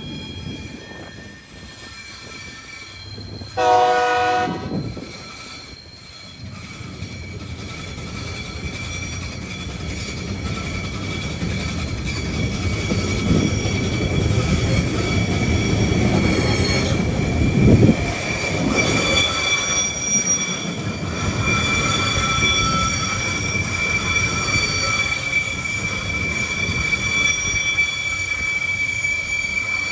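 Freight train passing: the locomotive sounds a short horn blast about four seconds in, then the rumble of container wagons builds, with steady high-pitched wheel squeal and a sharp loud clunk about eighteen seconds in.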